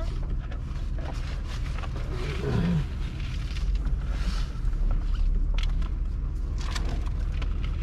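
A short animal call falling in pitch about two and a half seconds in, over a steady low rumble with scattered knocks and rattles.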